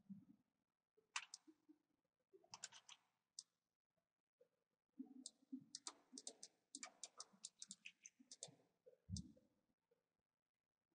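Faint, irregular clicking of a computer mouse and keyboard. The clicks come in scattered clusters, with a dense run from about five to nine seconds in, and there is one soft low thump near the end.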